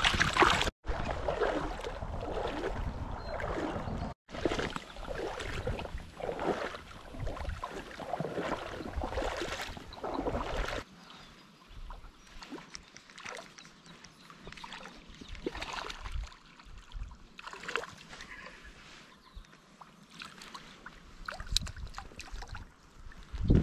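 Shallow river water splashing and sloshing as a smallmouth bass is released by hand. From about eleven seconds in it turns quieter, with scattered small splashes. Near the end a louder splash comes as a small hooked bass is drawn to the surface.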